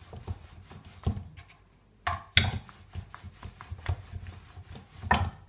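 Wooden rolling pin rolling out paratha dough on a round wooden board: a low rubbing rumble with irregular wooden knocks as the pin is pushed back and forth, pausing briefly about two seconds in.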